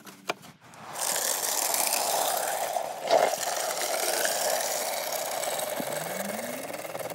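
Wet concrete sliding out of a tipped rubber bucket and dropping into the hollow core of a cement block, heard as a steady rush. There is a sharper knock about three seconds in.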